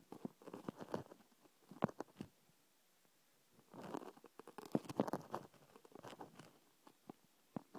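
Handling noise on a phone's microphone: a thumb brushing and tapping against the phone, heard as scattered clusters of soft rustling and clicks, the longest from about four to six and a half seconds in.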